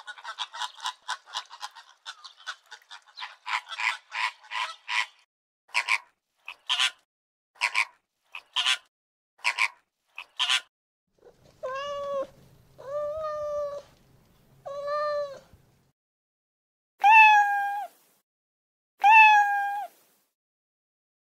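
An animal's calls: a fast run of short chirps, then slower single chirps, then four drawn-out, meow-like calls and two louder, higher-pitched ones near the end.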